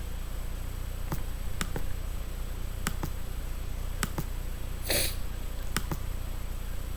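Computer mouse clicking about ten times, several of them in quick press-and-release pairs, over a low steady hum. A short, louder noisy burst comes about five seconds in.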